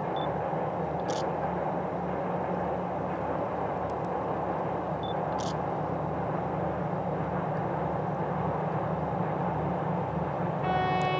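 Distant 3TE10U three-section diesel freight locomotive working toward the listener with a steady, low engine sound. About half a second before the end, its horn starts with one sustained, pitched blast.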